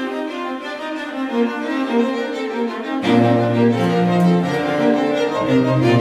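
Background music of bowed strings playing a classical-style piece, with a lower bass part coming in about halfway through.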